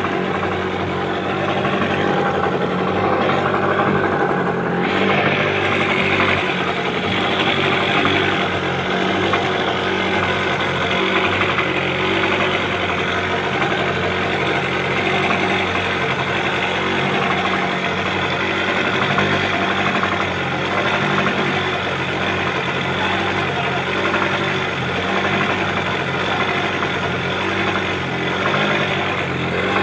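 An engine idling steadily with an even, pulsing low running note, unchanging throughout.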